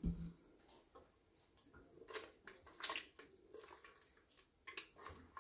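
A spoon stirring milky canjica in a metal pot, with a dull thump at the start and a few light knocks and scrapes of the spoon against the pot.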